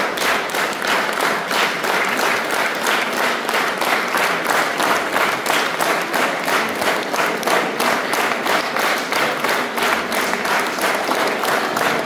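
Audience applauding, the clapping in steady rhythmic unison at about three claps a second.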